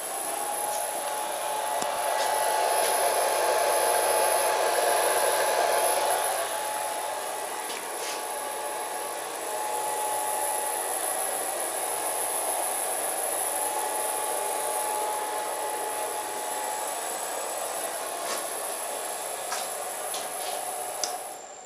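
Milling machine running: a steady motor whine over a hiss, loudest for a few seconds early in the run and then settling a little lower, with a few faint ticks.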